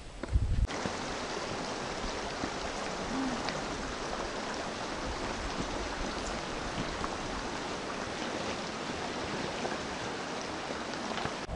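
Steady rushing of a woodland stream, an even wash of flowing water. It cuts in abruptly after a few low thumps in the first second.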